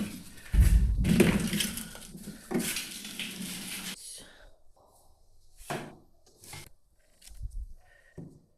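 Rustling and crunching handling noises with a heavy thump about half a second in, then a few scattered knocks.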